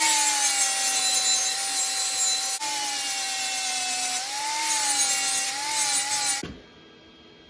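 Angle grinder cutting or grinding steel, a loud hiss over a whine whose pitch sags and wavers as the disc is loaded. It breaks off briefly about two and a half seconds in, runs again, and stops about six and a half seconds in.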